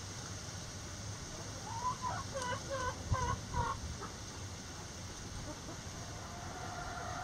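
Chickens clucking: a quick run of about six short clucks about two seconds in.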